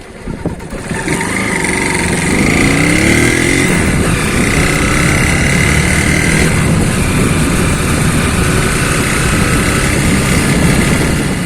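Honda CG Titan 150 single-cylinder four-stroke motorcycle engine running. The revs rise over the first couple of seconds, then it holds steady. The engine has a rattle ('cascabeleo') that the owner is trying to trace.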